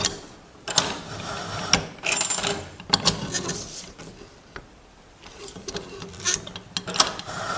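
Hand-operated bandsaw blade tooth setter being worked: irregular sharp metal clicks and clacks from its lever and clamp as a bandsaw blade's teeth are set one by one. There is a short lull in the middle.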